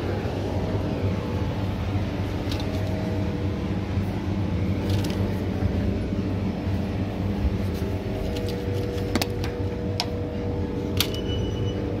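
Steady low mechanical hum with a few held tones, broken by several sharp light clicks, one near the end followed by a brief ringing tone.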